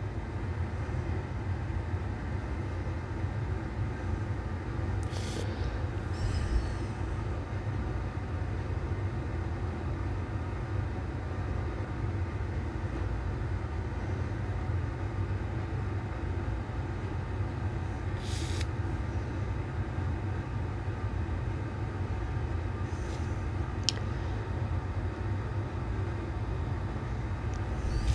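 Steady low rumble of background machine noise, like a running fan or air handler, with a few brief faint clicks scattered through it.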